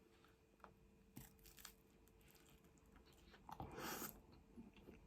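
Faint chewing of a mouthful of food, with a few small mouth clicks and a short breathy noise about four seconds in.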